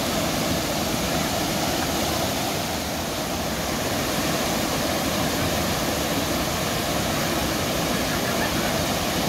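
Whitewater of a class II river rapid rushing steadily, a dense, unbroken hiss of churning water with no change in level.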